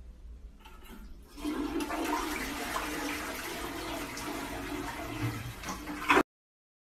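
Toilet flushing: water rushes and swirls into the bowl, starting about a second in and cutting off abruptly near the end.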